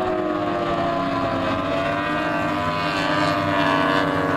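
Outboard race boats running at speed: a steady drone of several overlapping engine notes, all slowly falling in pitch as the boats pass.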